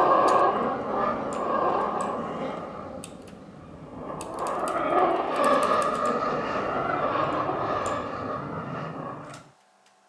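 A rushing, rumbling noise with a few sharp clicks, swelling, dipping about halfway and swelling again, then cutting off suddenly near the end.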